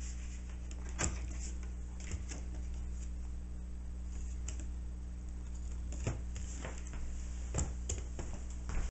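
Scattered light clicks and knocks from handling a camera tripod's head and the cardboard-backed light panel mounted on it, a few single taps and then three close together near the end, over a steady low hum.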